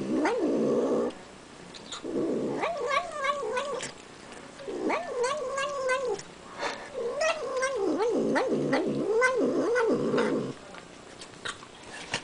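Domestic cat making its wavering, growl-like 'nom nom nom' sound while eating sour cream, in four bouts with short pauses between them. Quieter clicks of licking and chewing fall in between.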